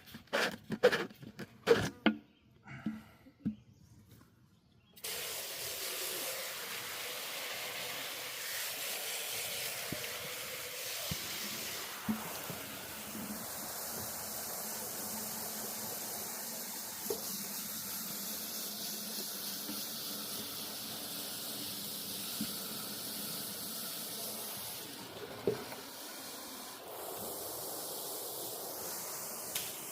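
A garden hose running, water spraying into a container as a steady hiss that starts suddenly about five seconds in, after a few short knocks and clatters.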